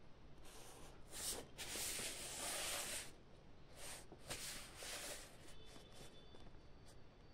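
Irregular bursts of rustling, loudest from about two to three seconds in, then fainter, with a few faint high tones near the end.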